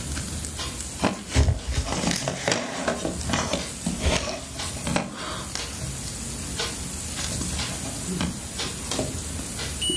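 Irregular clicks, taps and scratches of multimeter probes and the meter being handled against a Raspberry Pi 3 circuit board on a wooden table. Right at the end a multimeter's steady high continuity beep starts, the sign that the wire being tested is connected.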